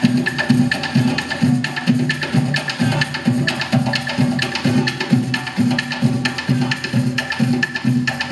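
Live percussion music: hand drums beating a steady rhythm of about two to three low beats a second, with sharp clicks over it.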